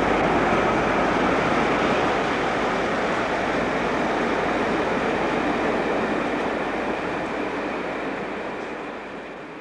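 Class 47 diesel locomotive with its Sulzer 12-cylinder engine hauling a train of coaches past, engine and wheel noise running steadily and then fading away over the last few seconds as the train moves off.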